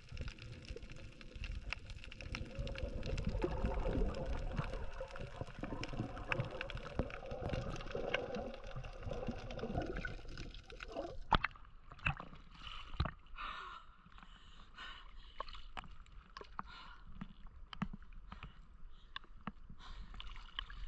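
Water bubbling and sloshing around an action camera held by a snorkeler underwater, with a low rumble. About halfway through it gives way to sharper, separate splashes as the camera comes up at the surface.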